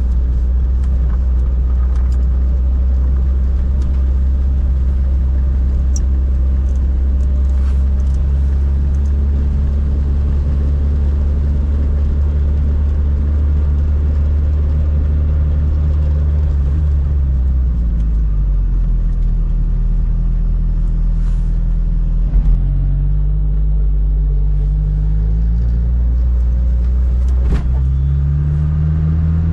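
Fiat 600 with a swapped-in 1.6-litre four-cylinder engine running at steady highway cruise. About two-thirds of the way through the revs drop as the driver eases off, and near the end they climb again under acceleration.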